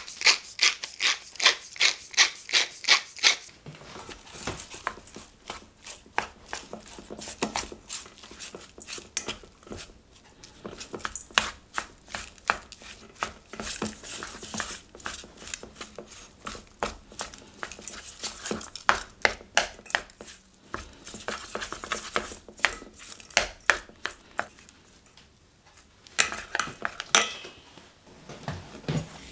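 A pepper mill grinding over the bowl with even, rapid clicks, about four a second, for the first few seconds. Then raw beef mince being mixed by hand in a stainless steel bowl: wet rubbing and squishing with light irregular clicks against the metal.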